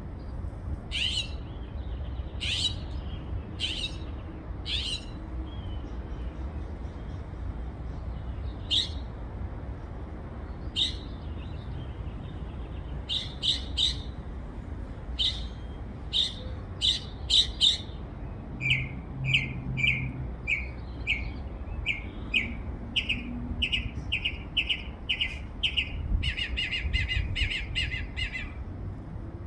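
A single songbird singing a varied series of calls: sharp, high chirps spaced a second or two apart, then a run of short repeated notes at about two a second, and a rapid rattling burst near the end.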